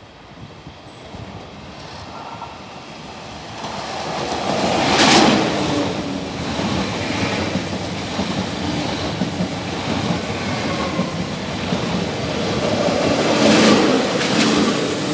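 Train approaching and running by, growing louder over the first five seconds and then staying loud, with two louder surges, one about five seconds in and one near the end.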